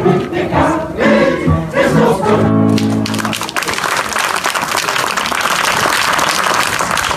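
A mixed choir sings the end of a hymn, closing on a long held chord, then about three seconds in the audience breaks into applause.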